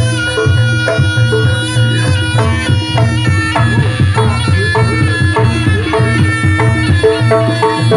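Jaranan gamelan music: traditional Javanese ensemble with a steady, driving drum pulse under a held, wavering melody line.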